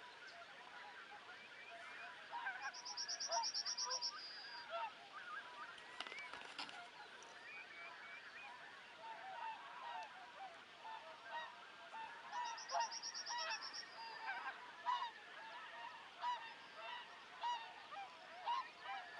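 A large flock of wild geese calling, with many overlapping honks running together. A small bird's high, rapid trill cuts in twice.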